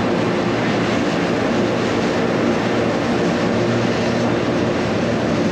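Electric cog railway train of the Montreux–Rochers-de-Naye line running at a steady speed: an even rumble with a steady low hum.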